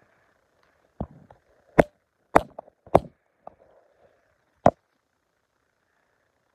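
Handling noise: about six sharp knocks and clicks spread over some four seconds, as a phone is held and moved close to its microphone while a Fitbit band is shown.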